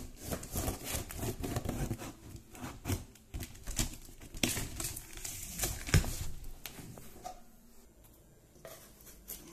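A small knife cutting along the packing tape of a large cardboard box, with the tape tearing and the cardboard rustling and knocking as it is handled. It comes as irregular scrapes and clicks, busiest in the first seven seconds.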